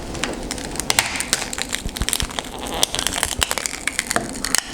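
Shattered phone screen glass crackling and snapping as it is pried off the glued-in frame of an Oppo R9s, with many irregular sharp clicks.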